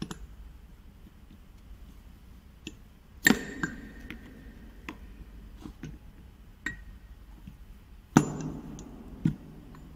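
Stainless steel ball valve parts knocking and clinking against each other as they are handled during disassembly: two loud metallic knocks with a short ring, about three seconds in and again about eight seconds in, among lighter clicks and taps.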